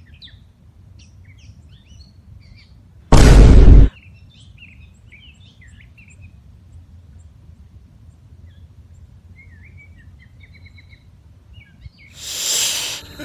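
Small birds chirping in the background, with a very loud burst of noise lasting under a second about three seconds in. Near the end there is a short breathy blow of air.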